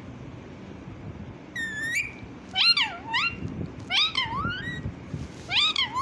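Pet parrot giving four drawn-out, cat-like meow calls, each rising and falling in pitch.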